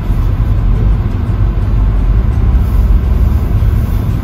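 Car driving slowly on a paved road: a steady low rumble of engine and tyre noise.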